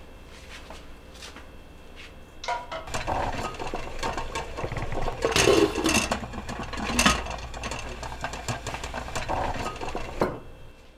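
Kitchen clatter of a ceramic bowl, steel pot and lid: repeated knocks and clinks with a low rumble underneath, starting a couple of seconds in and cutting off suddenly near the end.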